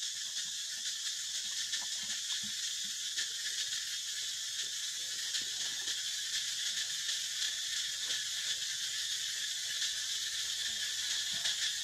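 Steady, high-pitched chorus of forest insects, a continuous shrill buzz with a fine rapid pulse. Faint scattered rustles and light taps sound beneath it.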